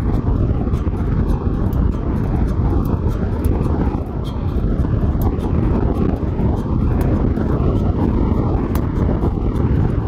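A steady low rumble, with faint, irregular metallic clicks from a hand-held saw set bending band saw blade teeth one after another.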